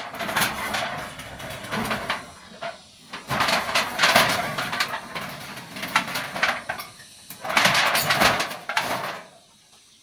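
Corrugated metal roofing sheets rattling and scraping as they are lifted, dragged and laid down on one another, in three long bouts of clatter that stop suddenly about nine seconds in.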